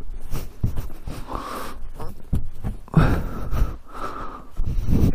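Gloved hand brushing and rubbing snow off a side-by-side's windshield and plastic body panels: irregular swishing strokes, the loudest about three seconds in and near the end, over a low rumble.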